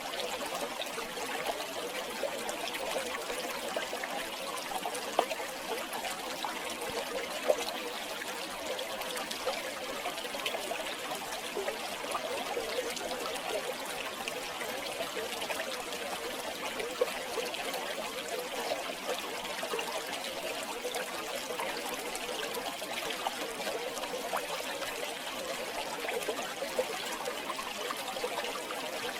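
River water flowing and trickling steadily, with small splashes and bubbling throughout.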